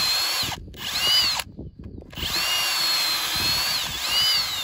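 Power drill boring a hinge hole into a wooden gate post with a long wood-boring bit, the motor whine rising and falling in speed. It stops briefly twice and starts again as the bit is backed out to clear the wood chips from the hole.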